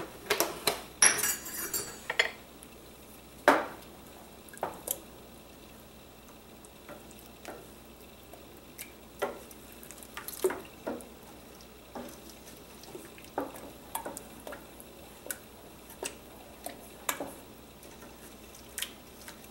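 A spoon stirring thick tomato sauce in a stainless steel pot, knocking and scraping against the pot's side at irregular intervals, with a brief clatter about a second in.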